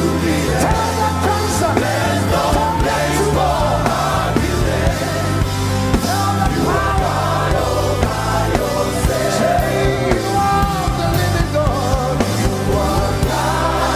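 Gospel worship music: a sung voice over a band, with sustained bass notes underneath.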